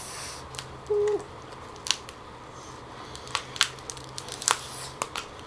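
Cooked lobster shell being cracked and pulled apart by hand: a run of sharp, irregular cracks and clicks. A short hummed note sounds about a second in.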